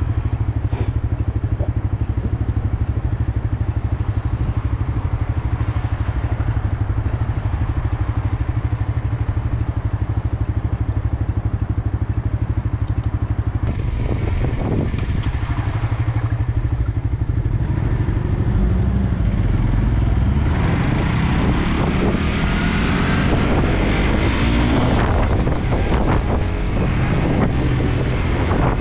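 Suzuki GSX-R motorcycle engine idling steadily, then revving and pulling away about two-thirds of the way through. Wind noise builds on the microphone as it gathers speed.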